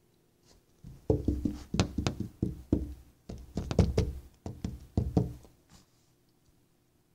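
Dog gnawing on a rubber garden hose: a run of irregular knocks and crunching clicks, about a dozen over some five seconds, starting about a second in and stopping near the end.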